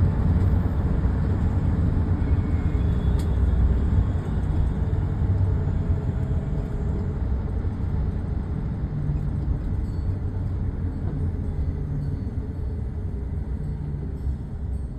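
Car driving, heard from inside the cabin: a steady low rumble of road and engine noise that eases slightly toward the end.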